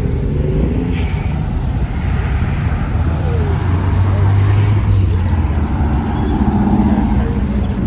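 Car engines running at low speed as cars roll slowly past, a deep steady rumble that swells about four seconds in.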